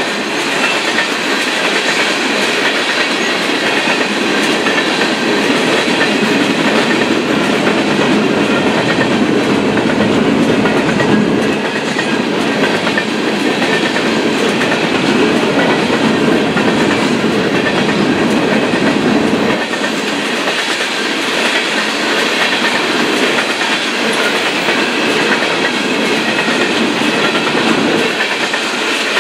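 Freight train coal cars rolling past close by: steel wheels on rail making a loud, steady rolling noise. The deepest part of the rumble eases a little about twenty seconds in.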